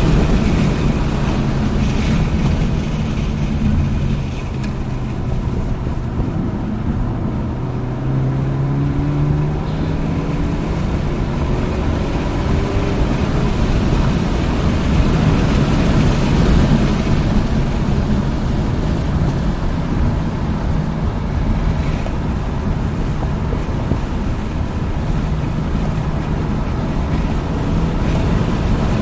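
Hyundai Elantra N's turbocharged four-cylinder engine under hard driving on a race track, its note rising and falling with throttle and gear changes, over loud wind and tyre noise.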